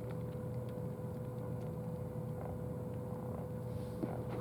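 A steady background hum with a faint held whine, broken by a few soft ticks and rustles of bubble wrap being handled.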